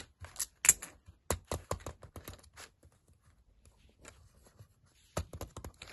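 Small plastic fidget-cube pieces clicking and tapping as they are handled and fitted together, in quick irregular clicks, then a pause, then another burst of clicks near the end.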